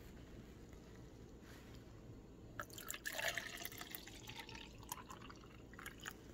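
Apple juice poured from a bottle into a cup. The liquid starts splashing and trickling about three seconds in and tails off after a second or two, with a few faint clicks around it.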